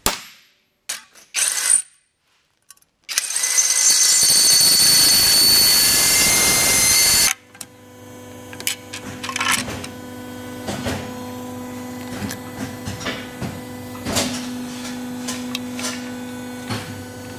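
A few short sharp taps, then a power drill running steadily for about four seconds, drilling a metal plate, stopping suddenly. After it, light clicks and knocks of parts being handled over a steady low hum.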